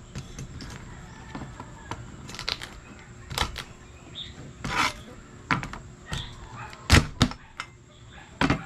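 A cleaver chopping through cooked mud crabs on a wooden cutting board: about seven sharp chops at uneven intervals, the loudest about seven seconds in.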